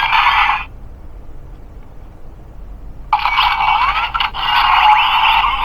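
DX Guts Sparklence transformation toy playing its sound effects through its small built-in speaker, thin and tinny. A short burst right at the start, then after about three seconds a longer effect with gliding, changing pitches.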